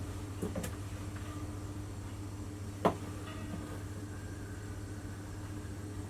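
Steady low hum with a few light clicks and knocks from epoxy containers and tools being handled while resin and hardener are measured out, including one sharp tap about three seconds in.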